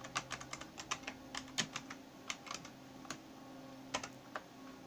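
Typing on a computer keyboard: a run of keystrokes, thinning after about two and a half seconds to a few scattered taps, over a faint steady hum.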